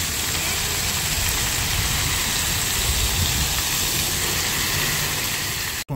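Splash pad fountain jets spraying water that falls back onto the paving: a steady rushing, splattering hiss that cuts off suddenly near the end.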